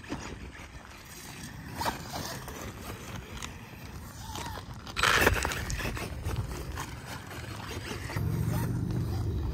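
Electric 1/4-scale Losi Promoto-MX RC dirt bike riding over loose gravel, its tyres scraping and crunching. There is a loud rush of noise about five seconds in, and a steadier, louder low hum from about eight seconds as the bike comes close.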